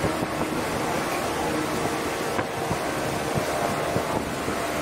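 Running noise of a Series 115 electric train heard inside a motor car at speed: a steady rumble of wheels on rail with a low hum from the traction motors, and a light click about halfway through.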